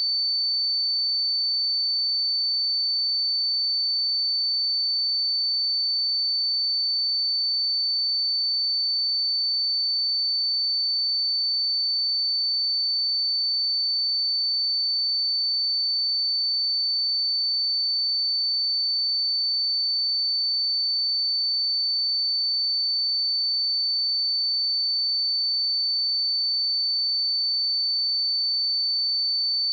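A pure 4531 Hz sine-wave test tone, a single steady high-pitched whistle held at constant level with no other sound.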